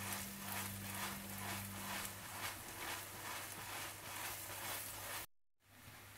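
Paratha frying in melted butter on a tawa over low heat: a faint, steady sizzle with a low hum beneath it. The sound cuts out briefly near the end.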